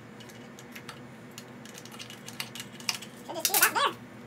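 Light metallic clicks and taps from hands working on a split air-cooled VW engine case and its small parts. A short wavering pitched sound, the loudest thing here, comes about three and a half seconds in.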